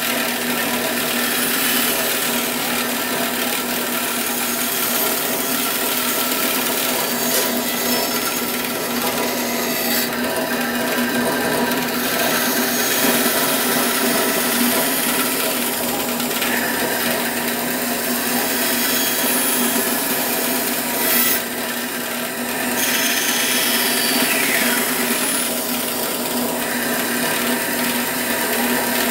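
Bandsaw running steadily and cutting wood: a constant motor hum under the blade's rasping noise, with a brief drop in level about three-quarters of the way through.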